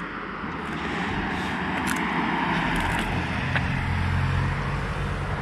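A motor vehicle driving past on the road, its engine and tyre noise swelling through the middle and easing off near the end.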